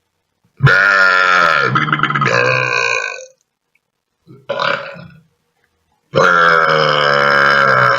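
A man burping loudly three times: a long drawn-out burp of nearly three seconds, a short one, then another long burp of about two seconds.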